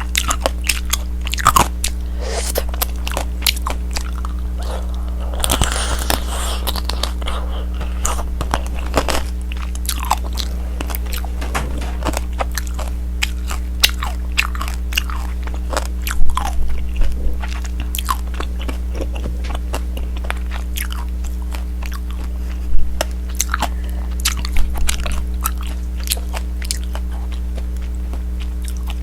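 Tanghulu being bitten and chewed: the hard, glassy sugar shell on the candied fruit cracks in many sharp crunches, with softer chewing between bites. The loudest crunches come about 16 and 23 seconds in. A steady low hum runs underneath.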